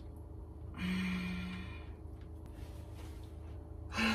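A woman's heavy, breathy sigh, "haa", right at the end, a sound of dismay at the torn, hole-ridden cabbage leaves. About a second in there is an earlier short sound held on one steady pitch for just under a second.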